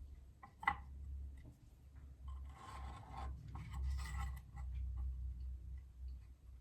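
Pencil scratching layout marks onto rough-cut elm boards in two short scratchy strokes, with a few light knocks and clicks as the boards are handled. A low steady hum runs underneath.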